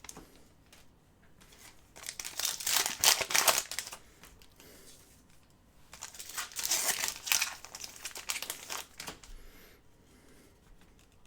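Trading-card pack wrappers being torn open and crinkled by hand, in two bursts of crackling, about two seconds in and again about six seconds in.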